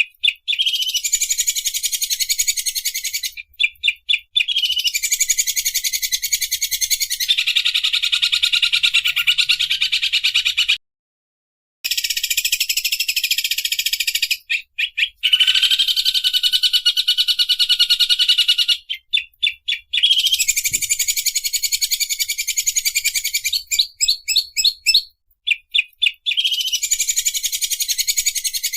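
A songbird's very rapid, buzzing trill, the chattering 'sewing machine' song used as training song for cage birds. It comes in phrases of a few seconds, each opening with a few short clipped notes, and stops dead for about a second near the middle.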